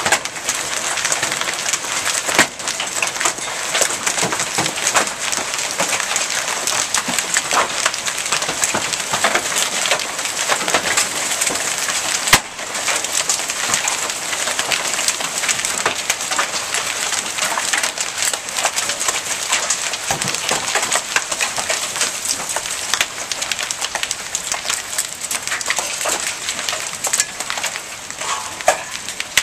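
Hail mixed with rain pelting lawn, pavement and the street: a dense, steady crackle of many small hailstone impacts over the hiss of rain, with one louder crack about twelve seconds in.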